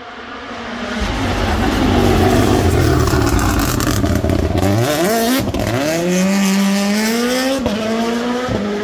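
A WRC Rally1 car's turbocharged engine approaches and brakes into a tarmac hairpin, with a run of sharp cracks and pops from the exhaust. It then accelerates hard out of the corner, the revs rising steeply through two quick upshifts, before the sound cuts off abruptly.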